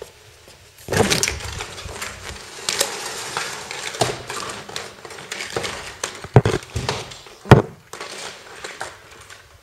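Vertical window blinds rustling and clacking as someone pushes through the hanging slats, with a couple of sharp knocks near the end.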